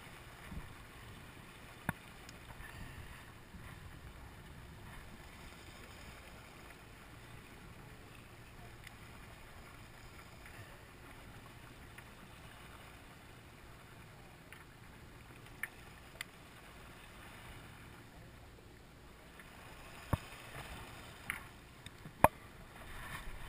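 Steady low wind and water noise on open sea, broken by a few sharp clicks, the loudest near the end.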